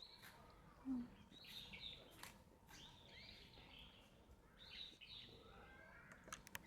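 Near silence: faint bird chirps in the background, with one brief low sound about a second in.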